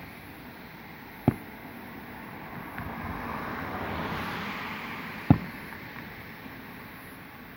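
Two aerial firework shells bursting, each a sharp boom, about four seconds apart, over a rushing background noise that swells in between.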